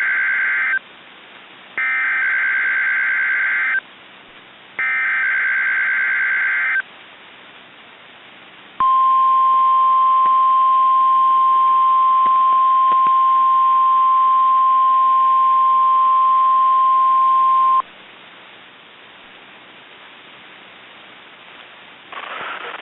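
NOAA Weather Radio weekly test signal: three bursts of the SAME digital data header, each about two seconds long, then the steady 1050 Hz warning alarm tone held for about nine seconds before it cuts off, with faint radio hiss between and after.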